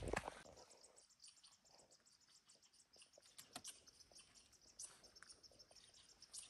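Near silence: quiet forest ambience with faint, scattered high-pitched chirps, after a brief rustle of movement at the very start.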